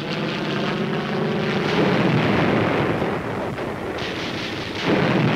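Propeller plane with a radial piston engine flying past low: a steady engine drone that swells loud about two seconds in and eases off. A second, louder and rougher rushing swell comes near the end.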